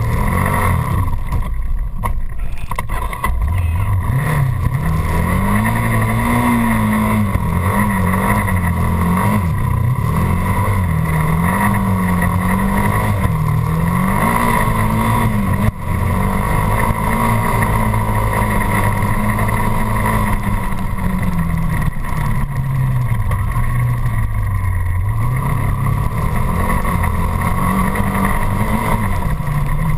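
Dirt bike engine running, its pitch rising and falling over and over as the throttle is opened and closed.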